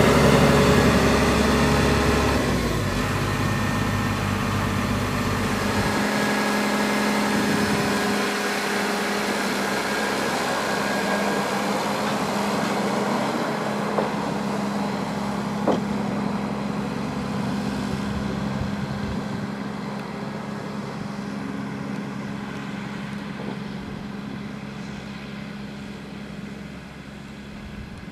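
Diesel engine of a Hyundai 140W-9 road-rail excavator running steadily, its heavy low rumble easing about six seconds in, then fading as the machine travels away along the track. Two light knocks come about halfway through.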